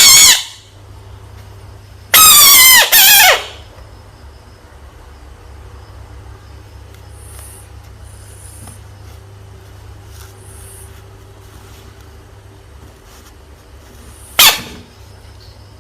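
Frog screaming, the high squealing distress scream a frog gives when threatened. A long scream about two seconds in breaks briefly and slides down in pitch as it ends, with a short cry at the very start and another near the end. A steady low hum runs underneath.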